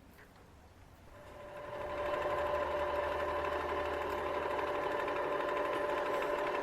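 Mini lathe starting up about a second in and running steadily, a small-motor whine with a few steady tones, during a cutting pass on a thread.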